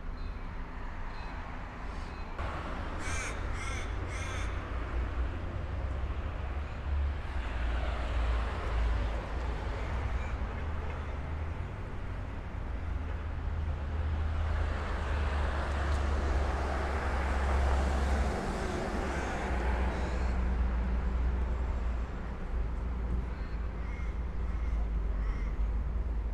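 Street traffic: cars pass on a wet road, loudest about halfway through, over a steady low rumble. A few seconds in, a bird calls several times in quick succession.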